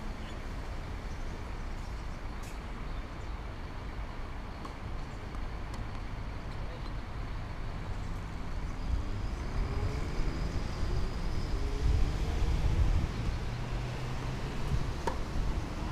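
Steady low rumble of road traffic, with a motor vehicle accelerating past a little after the middle, its engine pitch rising as it gets louder. A single sharp click comes near the end.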